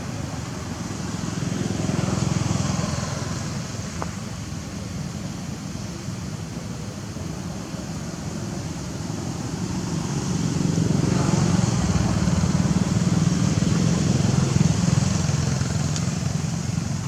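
Passing motor-vehicle traffic: a steady rumble that swells twice, briefly a couple of seconds in and for longer in the second half, as vehicles go by.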